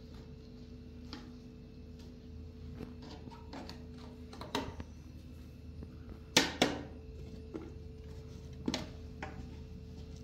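Scattered light clicks and knocks of things being handled, with two sharper knocks close together about six and a half seconds in, over a steady low hum.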